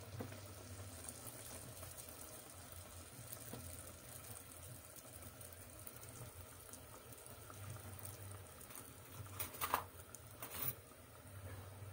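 Mandazi dough deep-frying in hot oil: a faint, steady sizzle, with a few short knocks near the end.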